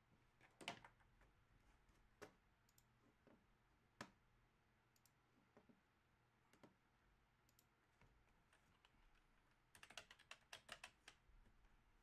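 Near silence with a few faint, scattered clicks, then a quick run of about a dozen clicks near the end.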